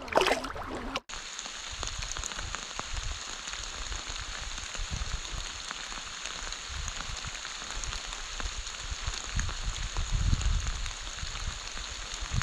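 A short splash of water in the first second, then steady rain pattering, with occasional dull low thumps.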